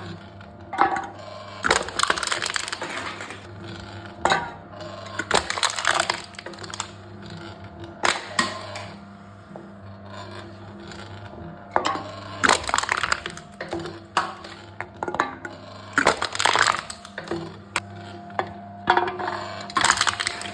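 Aluminium cans being crushed in a wooden can-crushing machine: repeated crunching and crackling of crumpling metal, in bursts every one to four seconds, over a steady low hum.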